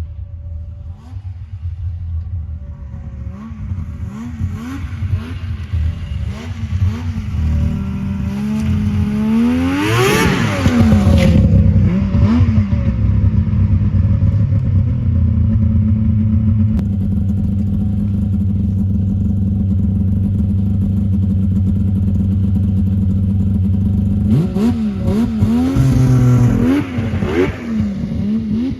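Yamaha V-Max three-cylinder two-stroke snowmobile engine being revved: a few throttle blips, a sharp climb to high revs about ten seconds in, then held steady at speed for several seconds, with more quick blips near the end.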